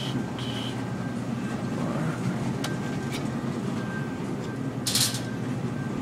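Shopping cart rolling steadily over a store's hard floor, its wheels and wire basket giving a continuous low rumble, with a few light clicks and one short sharp noise about five seconds in.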